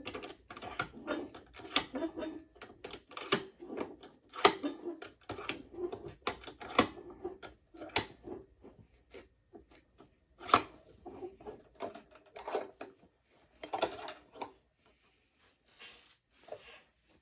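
Irregular clicks, knocks and clatter of a round metal lantern part being refitted into a small vise padded with leather and sandpaper, and the vise being tightened on it. The knocks come thick at first, then thin out to a few sharp ones.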